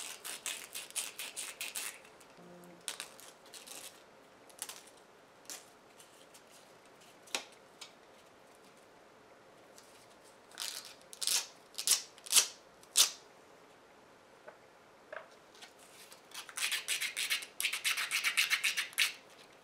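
Sandpaper rubbed by hand over a small 3D-printed plastic ring to smooth away the printer's layer lines. Quick scratchy strokes come in spells: a run at the start, a few louder strokes around 11 to 13 seconds in, and a fast run near the end, with quieter pauses between.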